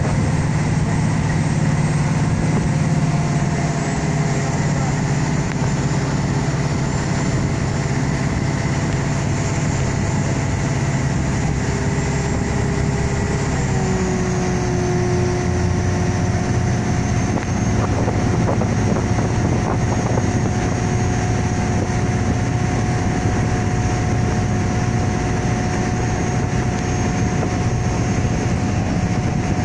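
Motorboat engine running steadily at speed while towing a parasail, over a rush of wind and water. Its pitch drops slightly about halfway through.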